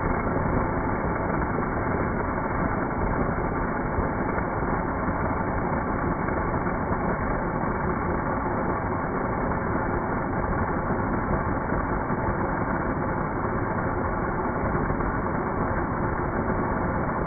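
Electric blender motor running steadily, chopping lemons with sugar into a pulp.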